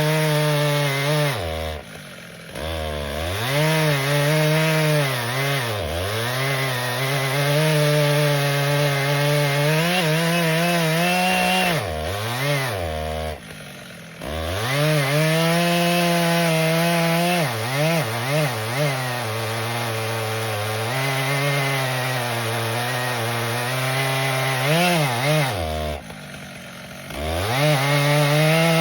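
Stihl MS 881 chainsaw cutting through a large maple log at full throttle, its engine pitch sagging and recovering as the chain bites. Three times it drops briefly to idle and revs back up.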